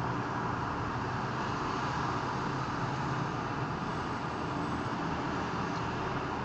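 Steady road-traffic noise from a busy multi-lane intersection: an even, continuous hum of passing cars with no single vehicle or event standing out.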